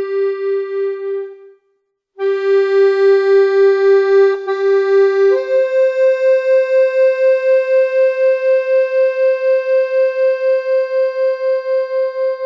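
Music: a single synthesizer or electronic-keyboard voice with a pulsing tremolo, playing slow, long-held notes. One note fades out and stops briefly, then sounds again. About five seconds in the melody steps up to a higher note, which is held for the rest.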